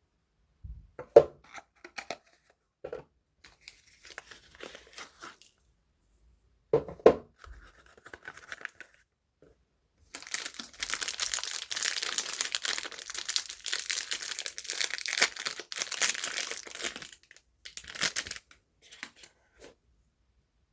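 Soap packaging being handled and unwrapped: a few sharp knocks and light rustles, then from about ten seconds in some seven seconds of continuous tearing and crinkling of the wrapping, ending in lighter rustling.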